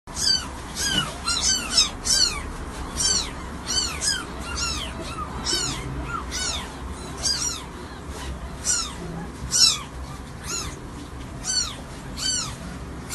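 A newborn kitten mewing over and over: thin, high-pitched cries, about two a second, each rising and then falling in pitch.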